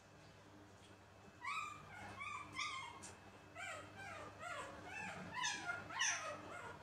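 Baby macaque giving a run of short, high-pitched squeaky calls, many falling in pitch, starting about a second and a half in.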